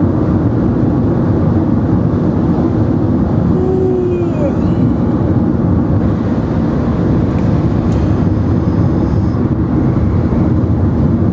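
Steady road and engine noise of a car heard from inside the cabin while driving, an even low rumble with no distinct events.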